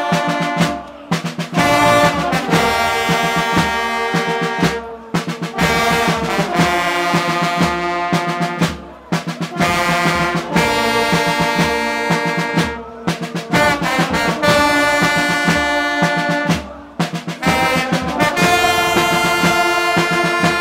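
Carnival brass band of trombones and trumpets playing loud held chords, in phrases of about four seconds with a short break between each.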